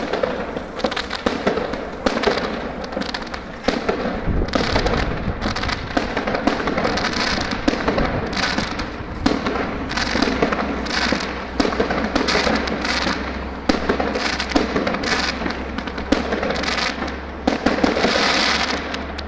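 Fireworks bursting overhead: a continuous run of sharp bangs and crackles, several each second, with a crackling burst near the end.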